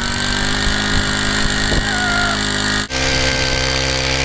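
Small engine of a gas-powered ice auger running steadily at throttle as it bores into the lake ice. The sound breaks off briefly about three seconds in, then the engine runs on steadily again.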